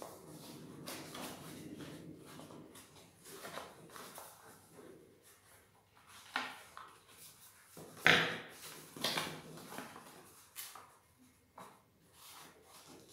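Paper rustling and crackling as a sheet is folded and creased by hand, in irregular crinkles with short pauses; the sharpest crackle comes about eight seconds in.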